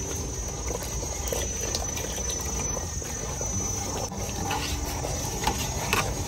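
Starch slurry poured into hot coconut milk in an aluminium pot and stirred with a metal ladle: liquid swishing and swirling, with a few light knocks of the ladle against the pot.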